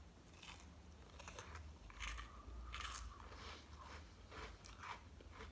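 A person biting into and chewing a biscuit: faint, irregular crunching chews with the mouth closed.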